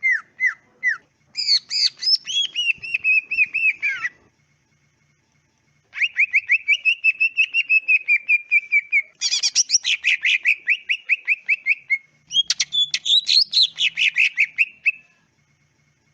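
Cucak ijo (green leafbird) singing in fast rattling phrases of rapidly repeated notes. There are four or five phrases with short pauses between them, and the loudest, densest stretch comes in the second half.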